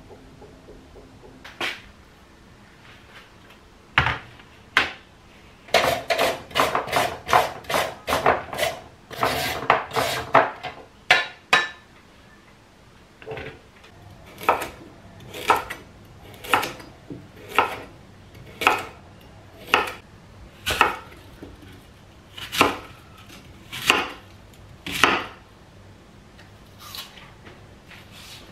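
Kitchen knife cutting a carrot on a wooden cutting board: a quick run of cuts, then single chops about one a second.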